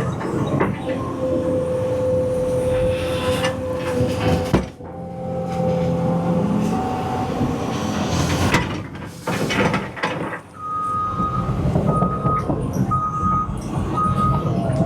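Cat 320 EL hydraulic excavator working: its diesel engine runs steadily with a whine from the hydraulics under load, and a few sharp knocks or cracks come in the middle as it digs out small trees and roots. About two-thirds of the way in, its warning alarm starts beeping about once a second.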